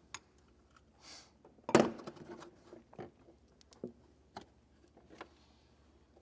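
Scattered metallic clicks and knocks of a 10 mm socket and nut being worked on a battery terminal post, with one louder knock about two seconds in.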